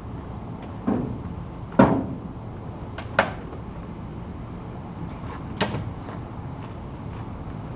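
A few separate short knocks and clunks, the loudest about two seconds in, from tools and hard objects being handled and set down.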